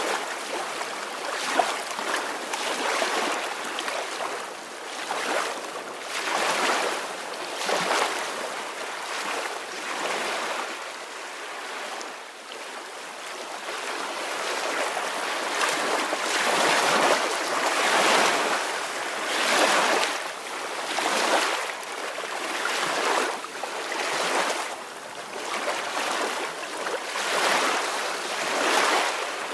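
Soft ocean waves washing on a shore: a steady wash of surf that swells and ebbs every second or two, easing off for a few seconds about halfway through before building again.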